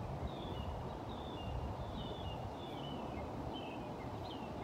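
Birds chirping in a string of short, quick high notes over a steady low background rumble.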